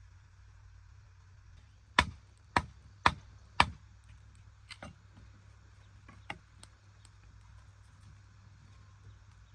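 Four loud, sharp knocks in quick succession, about half a second apart, followed by a few fainter, irregular taps.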